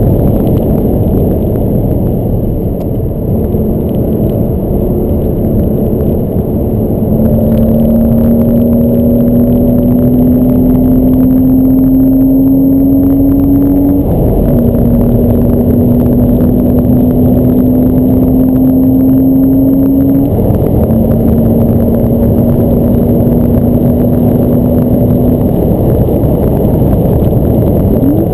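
Porsche Boxster S's flat-six engine pulling hard along the track, heard from inside the closed cabin over steady road and wind rumble. Its note climbs slowly, drops in pitch about 14 s in and again about 20 s in, then fades away about 25 s in.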